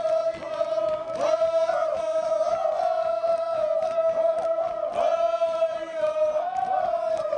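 A group of Papua New Guinean dancers chanting together on one long held note, with rising swells of voices about a second in and again near five seconds. Short, irregular knocking beats run underneath.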